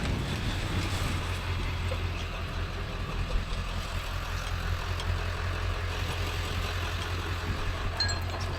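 Vehicle engine running steadily, a low hum with no change in pitch.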